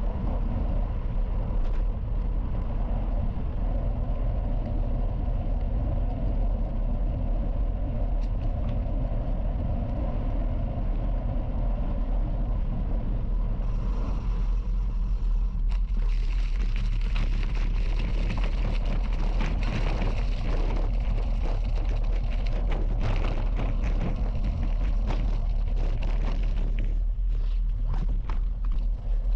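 Wind rumbling on the microphone of a moving bicycle, with its tyres rolling over a gravel path. From about 14 seconds in, the tyre noise turns into a rougher, denser crunching and crackling.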